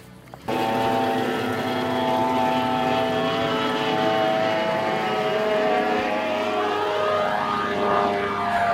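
Bass boat's outboard motor running at high speed on open water, a loud steady whining drone that starts suddenly about half a second in. Its pitch shifts in the last few seconds as the boat passes.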